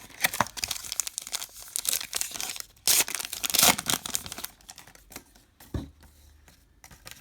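Crinkling and tearing of a foil trading-card pack wrapper being ripped open, loudest about three seconds in and dying away to a few light rustles after about four and a half seconds.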